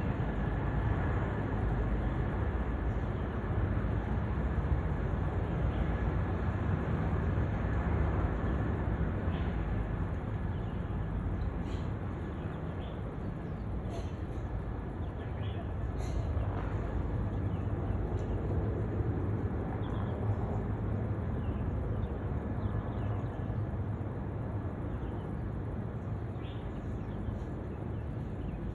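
Helicopter flying overhead: a steady, low rotor-and-engine drone.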